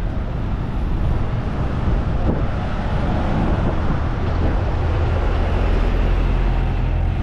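Road traffic rumbling steadily on a busy street. A double-decker bus's engine runs close by near the end, adding a deeper steady hum.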